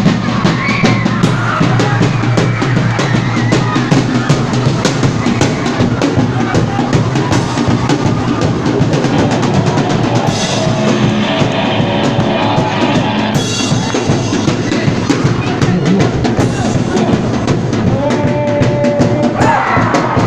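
Live rock band playing loudly: a drum kit keeps a fast, steady beat under an electric guitar played through small combo amplifiers, with a few held notes.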